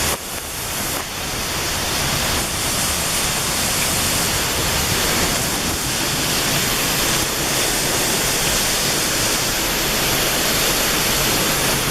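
Waterfall crashing close by: a loud, steady rushing roar of falling water and spray, heard through a plastic bag wrapped over the microphone.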